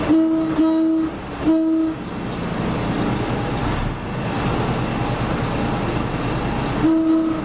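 Horn of a State Railway of Thailand train sounding short warning blasts of one steady note: three in quick succession right at the start, then two more near the end. Between the blasts the train runs slowly with a steady rumble.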